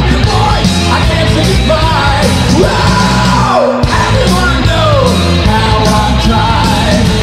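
Progressive power metal band playing, a 1990 demo recording: distorted guitars, bass and drums, with a high line bending up and down in pitch over them. The low end drops out briefly a little past halfway.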